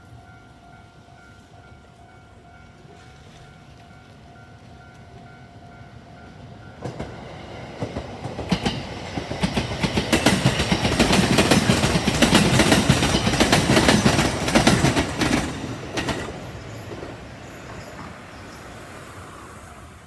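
A train passing over a railway level crossing: the noise builds about seven seconds in, the wheels clatter over the rail joints loudest in the middle, and it fades after about sixteen seconds. A steady warning tone from the level crossing is heard before the train arrives and again as it dies away.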